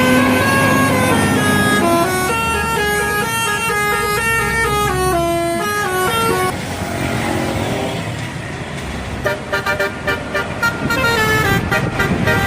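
Bus telolet horn, a set of electric trumpet horns playing a melody of short stepped notes for the first half. After a few seconds of vehicle noise without tones, the horns return as quick choppy toots near the end.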